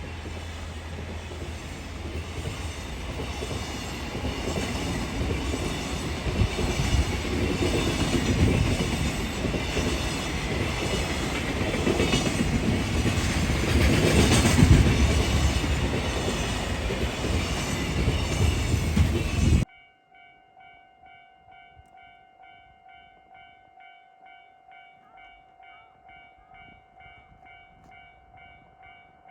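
A train passing close by over a level crossing, its wheels clattering on the rails, growing louder to a peak about 15 seconds in. The sound cuts off abruptly about 20 seconds in, leaving a level crossing warning bell ringing faintly in a steady repeating pattern.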